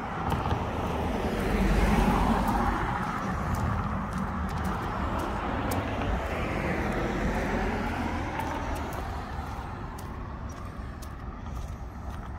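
Road traffic: cars passing on a busy street, a rushing tyre-and-engine noise that swells about two seconds in and again around six to seven seconds, then eases off toward the end.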